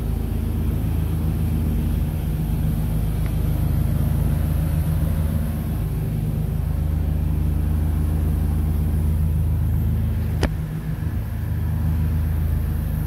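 Steady engine hum of a gas pressure washer running, with a brief high sweeping sound about ten seconds in.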